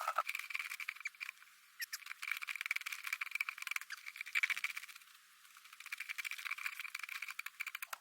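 Faint, rapid crackling and scraping in bursts with short pauses, as a log frozen into packed snow is wrestled loose.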